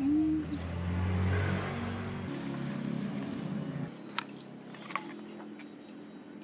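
A motor vehicle engine running steadily for about four seconds, then fading away. Near the end there are two sharp metal clinks of a ladle against the pot.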